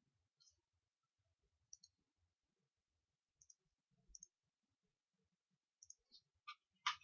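Computer mouse button clicks: single clicks and quick pairs, coming closer together and louder near the end.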